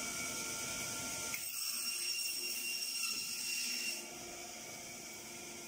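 Electric halving machine (fish belly and chicken feet cutter) running with a steady high-pitched whine, which shifts in tone about a second and a half in and drops to a quieter hum about four seconds in.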